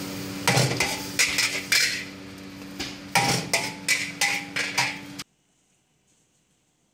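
Metal tongs clanking and scraping against a wok in quick, uneven strikes as fried noodles are scooped out, with a short metallic ring after some hits, over a steady low hum. The sound cuts off abruptly about five seconds in.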